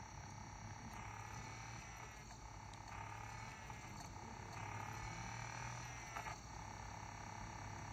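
Quiet room tone with no program sound: a steady low hum with faint, indistinct background sounds and a small click about six seconds in.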